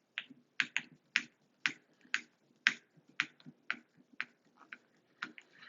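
A string of sharp clicks and taps at irregular spacing, about two a second, from hard faucet trim parts being handled and fitted together at the Moen shower valve.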